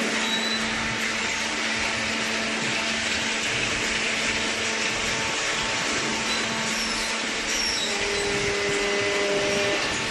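Paper baler machine's hydraulic power unit running: a steady motor-and-pump hum with a broad hiss. A second, higher tone joins for a couple of seconds near the end.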